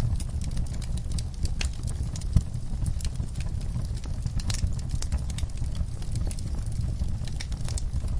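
Wood fire in a fireplace crackling, with irregular sharp pops and snaps over a steady low rumble of flame. One louder pop comes about two and a half seconds in.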